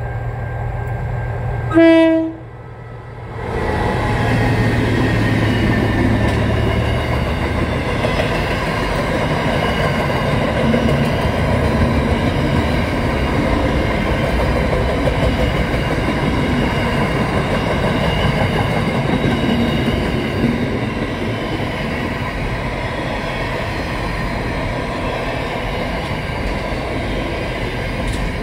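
SCT steel freight train hauled by diesel locomotive CSR22: one short, loud horn blast about two seconds in. The locomotive and a long string of wagons then roll past with a loud, steady rumble.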